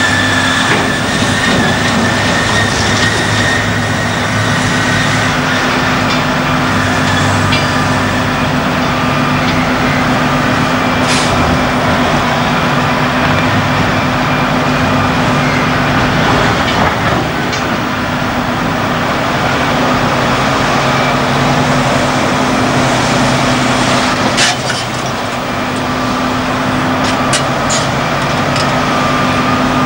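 Liebherr R992 hydraulic excavator's diesel engine running steadily under load as its bucket digs through broken rock, with rock scraping and a few sharp knocks, most of them near the end.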